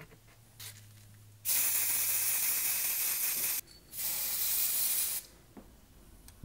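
Aerosol spray paint can spraying in two hissing bursts, the first about two seconds long and the second about a second, with a short pause between.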